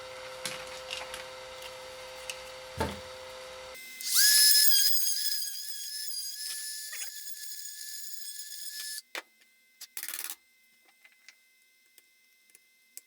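Small high-speed rotary tool spinning up to a steady high-pitched whine for about five seconds and then stopping, trimming the plastic of a battery-pack housing where a part will not fit. Light handling clicks before and after.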